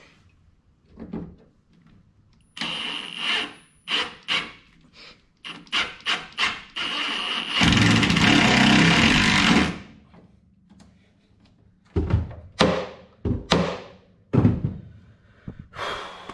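Cordless drill-driver driving screws into a gooseneck plug's mounting holes in a truck bed wall. It runs in short trigger spurts with a steady high motor whine, then one loud run of about two seconds. Several sharp knocks follow as the tool and parts are handled.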